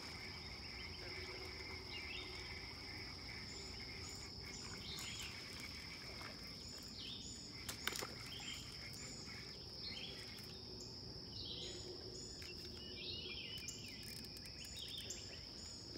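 Steady high-pitched insect drone with scattered songbird chirps and calls over it, and a single sharp click about eight seconds in.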